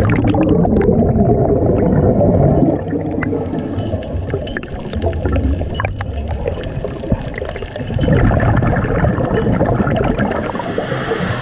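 Scuba regulator exhaust bubbles gurgling and rushing, heard underwater: a loud exhalation at the start, quieter for several seconds, then another loud exhalation from about eight seconds in. A few faint clicks.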